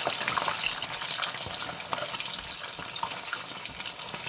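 Chicken karaage pieces deep-frying in very hot oil in a saucepan: a steady sizzle full of small crackles and pops. This is the second fry that crisps the coating.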